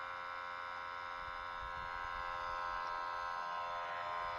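Small electric sump pump running with a steady buzzing hum.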